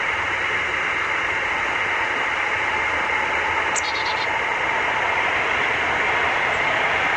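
Steady hiss of background noise, with one short high-pitched chirp a little past the middle.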